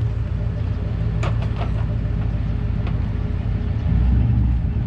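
1995 Ford F350's 460 big-block V8 running at a low, idle-speed crawl, a steady low rumble, with a few short clicks or knocks about a second in.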